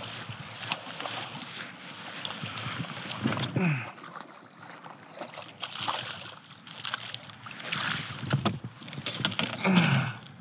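Water splashing and sloshing around a fishing kayak, with scattered sharp knocks and clicks.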